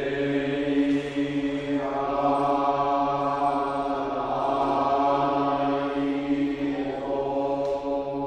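Buddhist monks chanting in low male voices, holding one long note. The sound grows fuller and brighter about two seconds in and eases off near the end.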